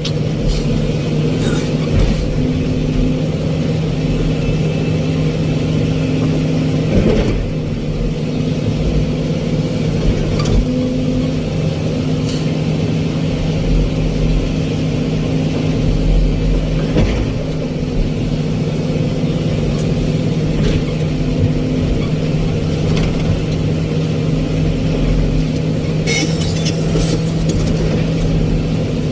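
Excavator's diesel engine running steadily under load, with a constant hum. A few short knocks come through, about seven, seventeen and twenty-six seconds in.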